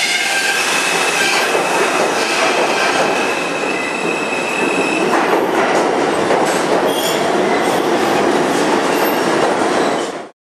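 New York City subway train's stainless steel cars moving past along a station platform: loud steady wheel and rail noise with a high ringing whine through the first half, then rattling clacks of the wheels in the second half. The sound cuts off just before the end.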